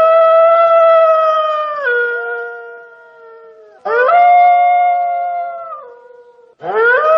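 A canine howling: three long, clear howls in a row, each sliding quickly up to a held pitch, then dropping a step and trailing off, the third still going at the end.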